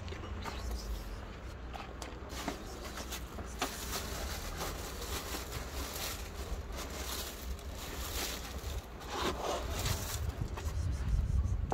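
Cats crunching dry kibble: an irregular run of small, sharp crunching clicks over a low background rumble that swells near the end.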